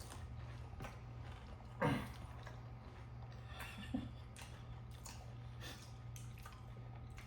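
Faint chewing and munching of panipuri (fried hollow puris filled with spiced water), with small wet mouth clicks over a steady low hum. A brief vocal sound comes about two seconds in.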